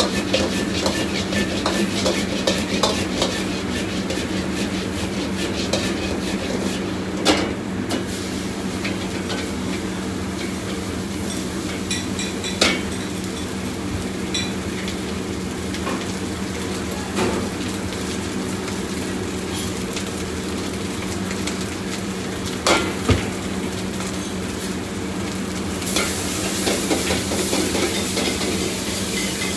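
Food sizzling as it is stir-fried in a wok over a gas wok burner, the metal ladle scraping and stirring in the pan, with a few sharp clanks of ladle on wok. A steady low hum runs underneath.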